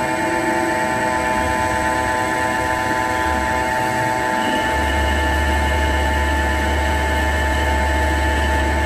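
CNC turning lathe running, its spindle turning a metal bar while the tool takes roughing cuts: a steady machine whine made of several held tones. A deep hum comes in about halfway through and holds.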